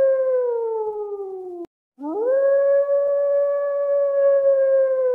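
Two long canine howls, each a steady pitched call that slides down in pitch. The first is cut off abruptly about a second and a half in; after a moment of silence the second rises, holds, and begins to fall near the end.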